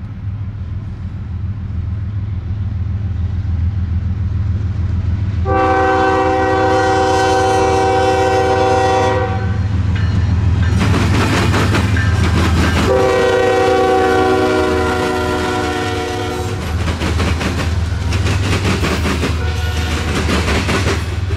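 An EMD GP60 diesel freight locomotive, a two-stroke V16, approaches and passes with a steady low rumble, sounding two long horn blasts of several notes at once, about five and thirteen seconds in. From about ten seconds in its wheels and then the freight cars' wheels clatter over the rail joints as the train rolls by.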